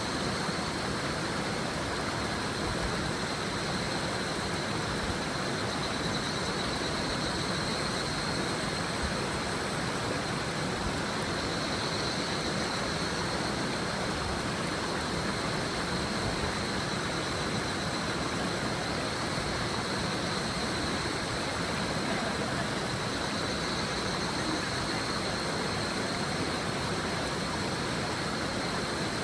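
River murmuring steadily, with a chorus of higurashi (evening cicadas, Tanna japonensis) calling high above it, their calls swelling and fading several times.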